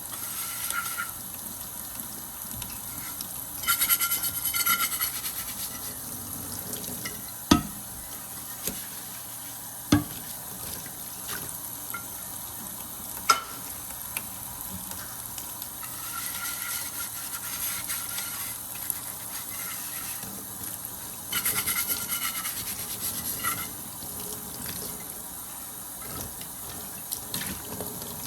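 Water running from a kitchen tap into a sink, swelling twice into a heavier gush, with a few sharp knocks of things handled in the sink.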